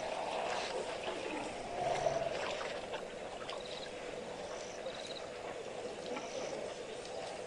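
Waterhole ambience as a herd of African elephants drinks: water sloshing and splashing at the edge, with a few short high chirps and a faint steady hum.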